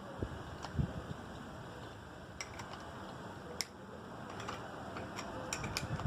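Scattered small clicks and a few low knocks of hand-fitting a grinding wheel onto an angle grinder, with the grinder not running; the knocks come in the first second and the clicks at irregular spacing after.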